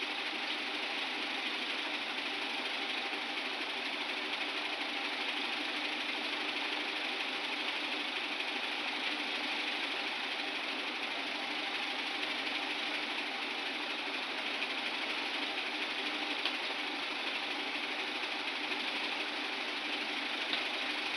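A steady mechanical whirring hum from a small motor, unchanging throughout.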